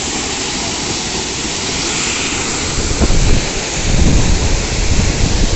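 Steady loud rush of a waterfall's falling water close to the microphone, with gusty low rumbles of wind on the microphone growing stronger about three seconds in.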